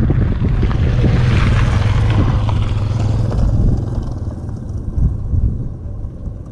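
Wind buffeting the microphone, a steady low rumble. A hiss swells about a second in and dies away by about three seconds.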